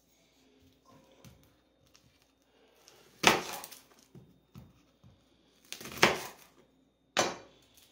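Kitchen knife cutting through an onion onto a plastic chopping board: three sharp knocks of the blade striking the board, the last two closer together, with quieter handling and rustling between.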